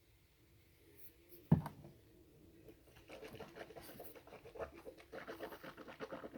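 A single knock about a second and a half in, then a run of quick, irregular scratchy rubbing sounds close to the microphone from about three seconds in.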